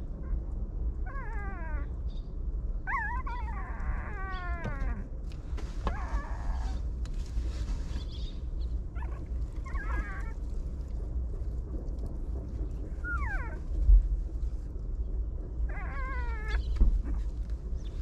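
Puppies whining and crying in short, high-pitched cries that slide downward, coming in clusters every second or two over a steady low rumble. Two low thumps come near the end.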